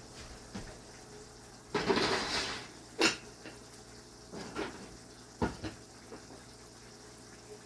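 Cookware and utensils being handled in a kitchen: a short scraping rush about two seconds in, then a few sharp clanks.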